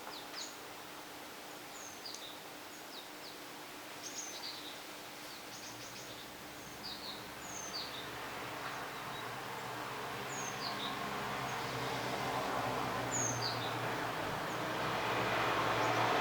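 Small birds chirping in short, repeated calls, while a vehicle's noise grows steadily louder through the second half, as if approaching.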